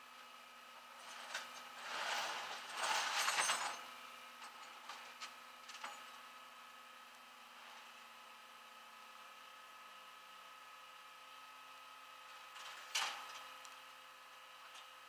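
Metal clattering and clanking of tow-truck chains and tie-down hardware being fastened on a flatbed: a longer rattle about two seconds in, scattered small clicks, and one sharp clank near the end, over a steady hum.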